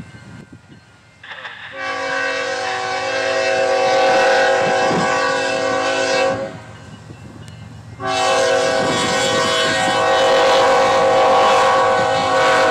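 Kansas City Southern freight locomotive's air horn sounding two long blasts, each about four to five seconds, with a short gap between. Each blast is a steady chord of several notes.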